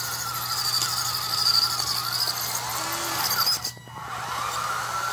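Small DC gear motors of a DFRobot 4WD robot platform whining as it drives, the pitch wavering up and down with the motor speed. The whine cuts out a little past halfway and starts again soon after.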